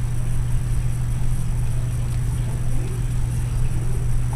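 A steady low hum, with a faint voice briefly about three seconds in.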